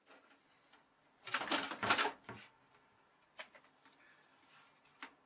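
A cat scrabbling and clattering against a computer tower as it slips down its side. There are several loud scuffling bursts a little over a second in, then a few scattered knocks.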